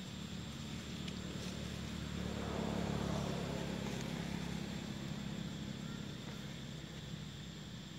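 A motor vehicle's engine humming as it passes, growing louder to a peak about three seconds in and then fading.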